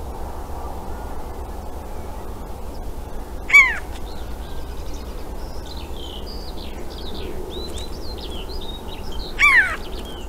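Two loud, short calls from a corvid, about six seconds apart, with softer high chirps from small birds between them over a steady low background noise.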